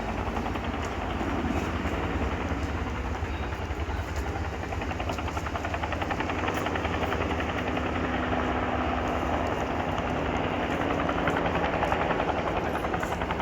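Japan Self-Defense Force helicopter flying overhead, its rotor giving a fast, even chopping pulse over a steady engine hum. It grows a little louder near the end.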